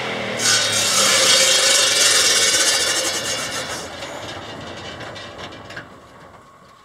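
Solar-powered bandsaw mill's blade cutting through a log, a harsh hissing rasp that starts suddenly about half a second in and fades gradually over the last few seconds.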